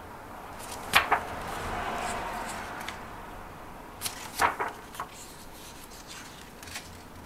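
Pages of a large photobook being turned by hand, twice. Each turn gives a sharp paper snap, the first about a second in and the second about four seconds in. The first is followed by a swishing brush of the page lasting a couple of seconds.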